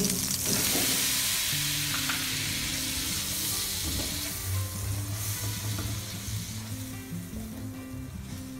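Butter sizzling in a hot nonstick pan while plain flour is stirred and scraped through it with a silicone spatula, toasting the flour for a butter-and-flour sauce base. The sizzle dies down over the seconds.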